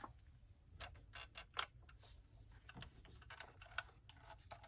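Faint, scattered small clicks and taps of a 1/18 diecast model car being handled and turned over, about a dozen irregular ticks.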